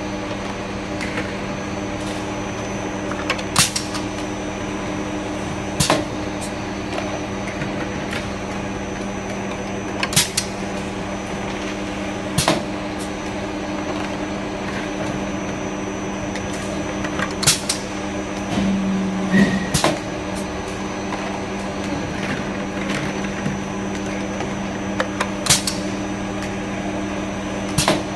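A manual double filling machine hums steadily while sharp metallic clacks come every two to five seconds as the containers are set into its steel nests and the filling heads cycle.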